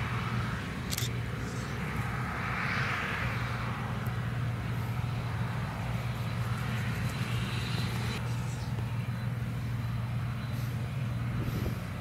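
New Holland CX8070 combine harvester running steadily while harvesting barley: a constant low diesel drone with a hiss above it.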